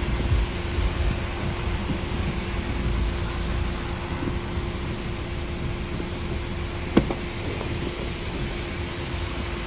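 Steady wash of highway traffic on wet pavement in heavy rain, with a low rumble underneath. A single sharp knock about seven seconds in.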